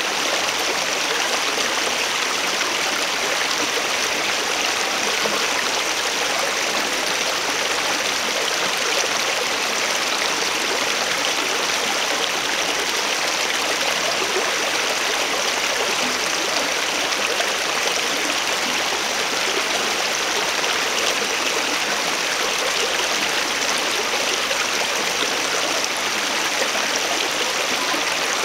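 A small, shallow stream of water running steadily over the ground, a constant rush of flowing water with no breaks.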